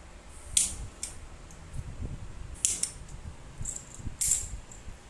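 Yarn and needle being pulled through plastic cross-stitch canvas: three short, sharp rasps, one for each diagonal stitch, with fainter ticks and a low handling rustle between them.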